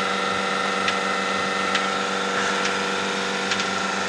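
Portable bucket milking machine running during milking: the vacuum pump motor hums steadily while the pulsator clicks sharply about once a second.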